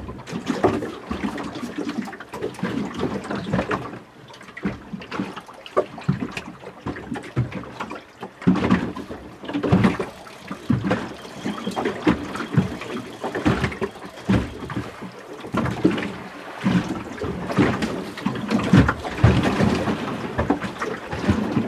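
Choppy sea water slapping and splashing irregularly against the hull of a small boat, in uneven surges.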